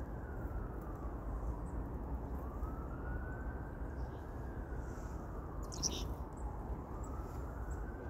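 A distant siren wailing, slowly rising and falling in pitch, over a steady low rumble, with a short high bird chirp about six seconds in.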